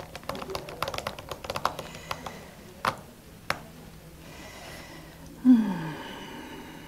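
Typing on a MacBook laptop keyboard: a quick run of key clicks, then two firmer keystrokes. About five and a half seconds in comes the loudest sound, a short vocal groan falling in pitch.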